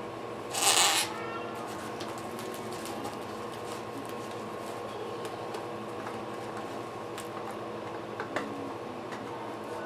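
A brief, loud rustling noise about half a second in, as assembly parts are handled. It is followed by steady room tone with a faint hum and a few faint clicks near the end.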